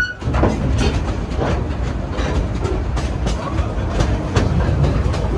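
Steam excursion train on the move, heard from aboard: a steady rumble from the running gear, with the wheels clicking irregularly over the rail joints.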